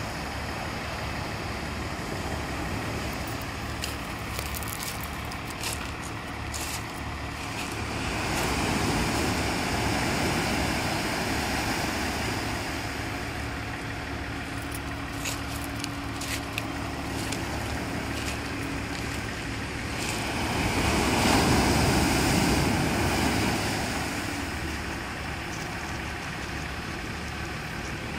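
Surf breaking on a pebble beach, swelling louder twice as waves come in, with sharp clicks of stones rattling in the backwash. A faint steady engine hum from a small boat heading in toward shore sits under the surf in the middle.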